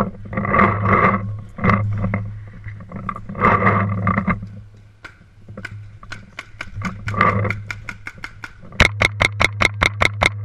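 Several loud, muffled bursts of noise over a steady low hum, then near the end a paintball marker firing a rapid string of about a dozen shots, roughly eight a second.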